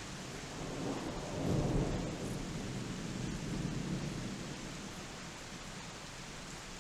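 Distant thunder rumbling over steady rain in a night thunderstorm: the low rumble swells about a second in, peaks soon after, and dies away over a few seconds while the rain hiss goes on.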